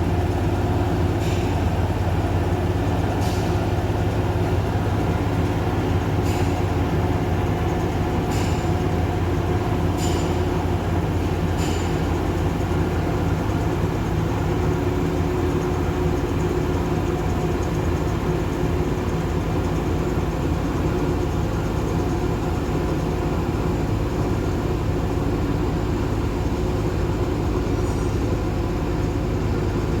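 Sri Lanka Railways Class S8 diesel multiple unit power car running steadily with its diesel engine at idle. About six sharp metallic clicks come in the first twelve seconds.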